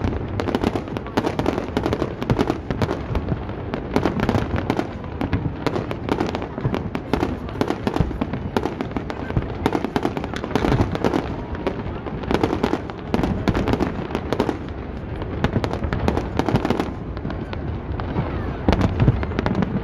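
Aerial fireworks bursting in a dense, near-continuous barrage of bangs and crackles, one burst on top of the next.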